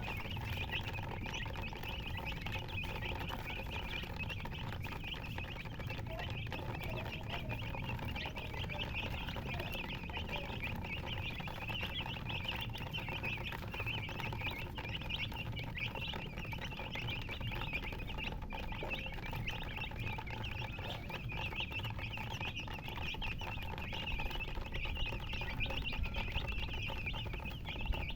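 Many baby chicks peeping at once: a dense, continuous chorus of short high cheeps, over a steady low rumble.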